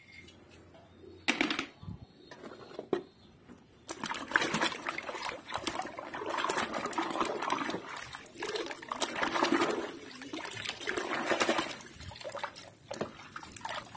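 A hand swishing and splashing vigorously in a tub of soapy water while scrubbing a small plastic toy vehicle, after a quieter start with a couple of light knocks. Near the end the splashing eases as the toy is lifted out, water dribbling off it.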